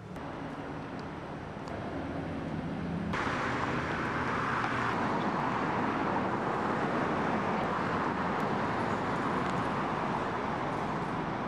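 City street traffic noise: a steady rush of passing cars with a low hum under it, which jumps abruptly louder about three seconds in and stays as an even roar of road noise.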